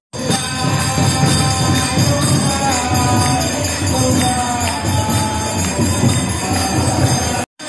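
Devotional temple music during aarti: voices singing a chant over steady jingling of metal hand cymbals and low drumming. The sound drops out for a moment near the end.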